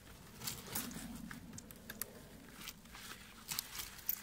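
Steel snow-chain links clinking now and then as the chain is worked around the back of a car tyre, over a low rustle of handling.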